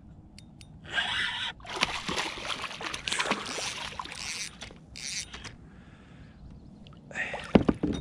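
A hooked catfish thrashing and splashing at the surface as it is fought to the side of a kayak, in irregular bursts, with the loudest splashes near the end as it comes alongside the hull.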